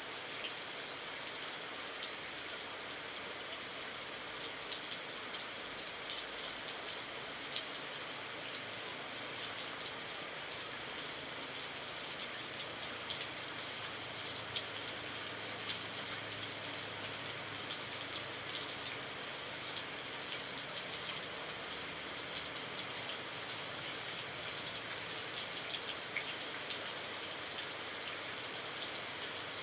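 Steady rain falling: a constant hiss, with many small drop ticks and a few louder single drops.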